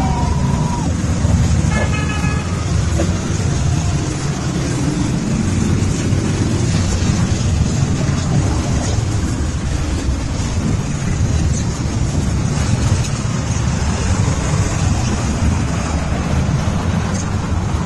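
A steady stream of motorcycles riding past, their engines making a continuous low rumble. There is a short horn toot about two seconds in.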